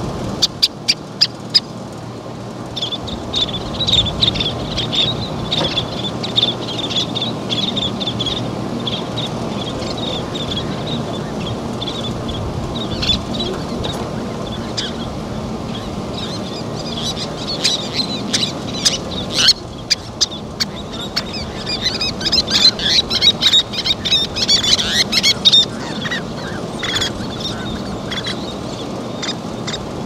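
Least terns calling: many short, high chips and chatter that come thickest about two-thirds of the way through, over a steady low background rush.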